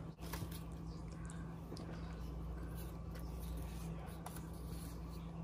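Quiet room tone: a steady low hum with faint, scattered small clicks and rustles.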